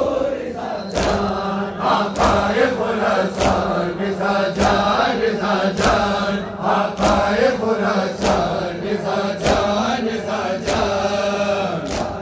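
Large crowd of men chanting a noha in unison, with loud, sharp hand-on-chest slaps of the matam landing together on an even beat, about one strike every 1.2 seconds. A steady low drone runs under the voices.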